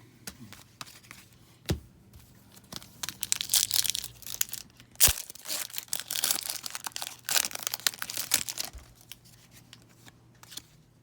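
An Upper Deck hockey card pack's wrapper being torn open and crinkled: several seconds of crackling tearing, with a sharp snap about five seconds in.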